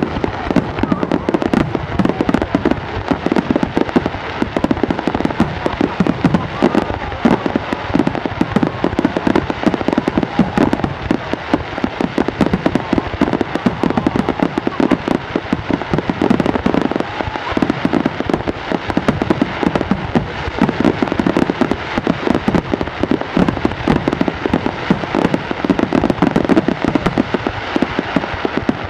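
Aerial fireworks going off in a dense, continuous barrage of rapid bangs and crackling, with no break.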